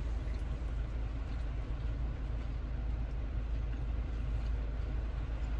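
Rain on a car, heard from inside the cabin: a steady even hiss over a constant low rumble.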